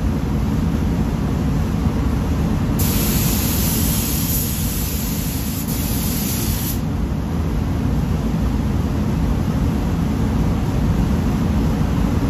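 Paint spray gun hissing for about four seconds, starting about three seconds in and cutting off sharply, over the steady low rumble of the spray booth's airflow.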